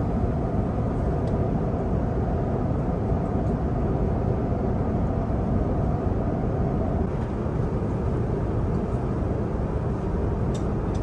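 Steady low rumble of a vehicle in motion, heard from inside, with a few faint clicks near the end.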